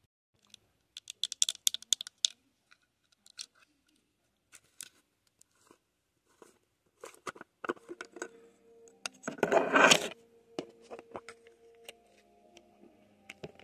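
Clicks and scratches of a plastic skincare tub being handled close to the microphone, with a louder scraping rasp about ten seconds in as the tub's lid is twisted off.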